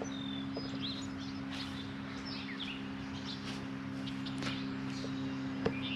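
Wild birds chirping: scattered short, high whistled notes, many sliding downward, over a steady low hum, with a single click near the end.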